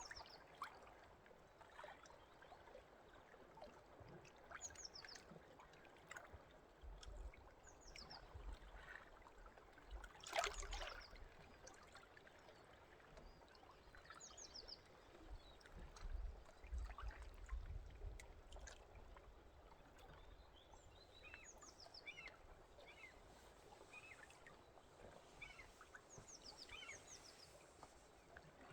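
Faint nature ambience: a low trickle of running water with many short, high bird chirps scattered throughout, and one louder brief sound about ten seconds in.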